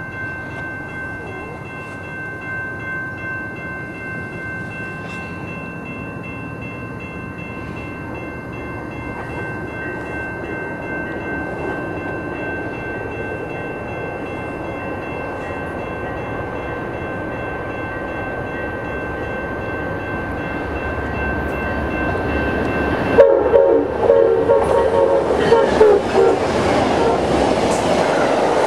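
Amtrak passenger train led by a P42 diesel locomotive approaching at speed, its horn held in a long, steady blast over a rising rumble. About 23 seconds in the locomotive reaches and passes, suddenly much louder, with the horn close by, and the passenger cars follow with rushing wheel noise and clatter.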